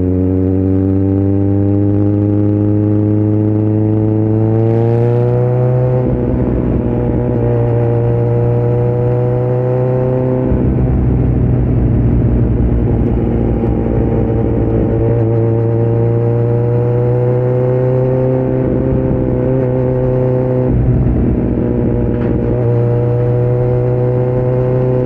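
2018 Kawasaki Z900's inline-four engine running through an open Yoshimura muffler and Delkevic headers with no dB killer, under way with its pitch slowly climbing. The pitch drops suddenly about ten and twenty seconds in, as at gear changes, then climbs again.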